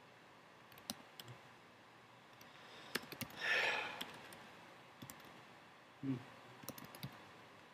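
Computer keyboard being typed on: sparse, irregular key clicks. About three and a half seconds in comes a short burst of hiss, the loudest sound.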